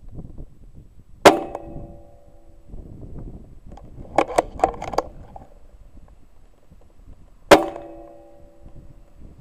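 Two shots from an Air Arms S410K pre-charged pneumatic air rifle, about six seconds apart, each with a sharp crack followed by a brief metallic ring. Between them comes a quick run of clicks as the rifle's action is cycled.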